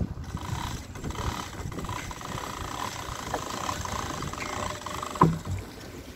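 A vehicle engine running steadily, with one sharp knock about five seconds in.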